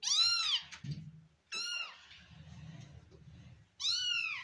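Kitten meowing three times: high, arching meows, a longer one at the start, a short one about a second and a half in, and another longer one near the end.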